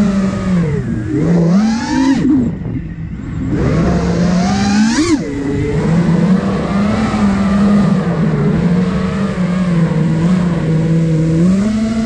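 5-inch FPV freestyle quadcopter's brushless motors and propellers whining, the pitch rising and falling with the throttle. About two and a half seconds in the throttle is chopped and the sound drops away briefly, then a sharp punch of throttle about five seconds in, a steadier stretch, and a climbing pitch near the end.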